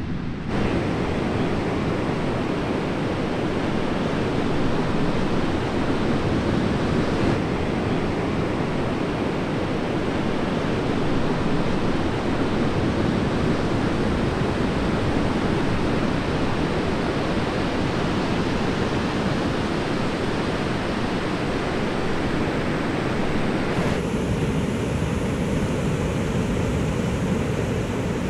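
Heavy hurricane-swell surf breaking, a steady loud rush of water noise. The sound changes abruptly a few times where clips are cut together.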